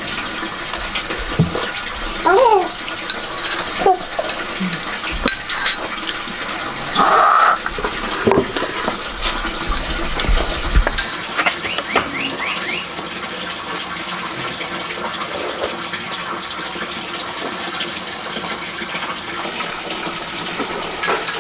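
Water running steadily from a tap, with a few clinks and knocks of dishes or pots.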